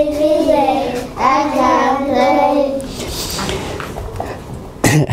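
Young children singing a simple song together without accompaniment, holding long notes. The singing dies away about three seconds in, and there is a short knock near the end.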